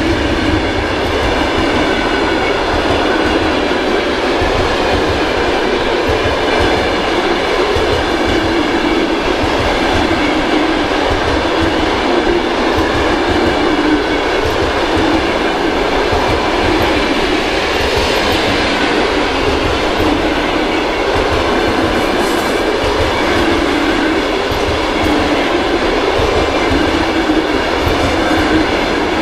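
Passenger coaches of a long train running past close by at speed: steady loud noise of steel wheels on the rails, with a few steady ringing tones over it.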